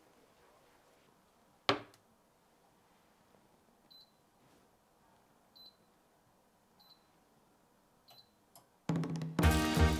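A steel pot set down on a glass-top electric hob with one sharp clack, then four short high beeps from the hob's touch controls, spaced a second or so apart, as it is switched on and set. Music with a beat starts near the end.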